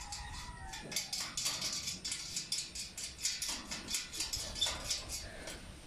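Light metallic clicks and taps of stainless steel cage parts being handled by hand as a brace bar is fitted and locked into a side panel, a quick irregular run of ticks.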